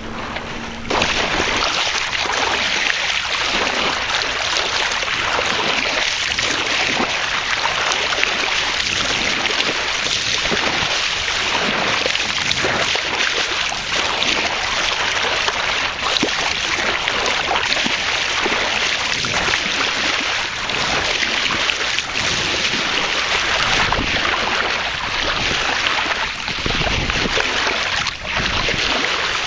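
Water rushing and splashing along a sailboat's hull as it moves under sail: a steady hiss that comes up louder about a second in.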